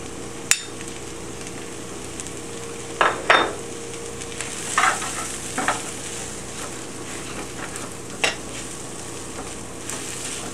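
Diced red onions and vegan chicken sizzling steadily in a skillet as a metal spoon stirs masala paste through them, with several short scrapes and knocks of the spoon against the pan.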